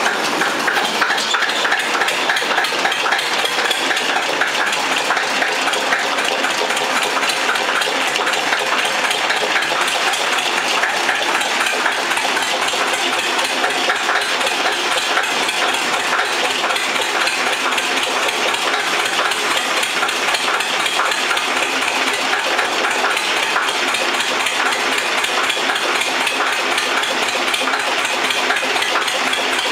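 Zetor 25 tractor's two-cylinder diesel engine running steadily, with an even, rapid diesel clatter.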